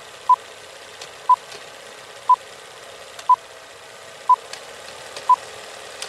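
Old film countdown leader sound effect: a short steady beep exactly once a second, six times, over a crackly film hiss with faint scattered clicks.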